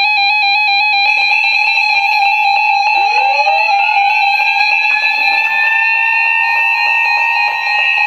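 Several NOAA weather radios sounding their electronic alert alarms together: loud, steady beeping tones that warble rapidly at first, and about three seconds in another alarm tone sweeps up in pitch like a siren winding up and then holds.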